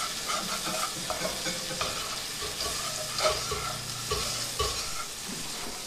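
A whisk stirring and scraping through a butter-and-flour roux in a nonstick frying pan on the stove, with the roux sizzling as it cooks.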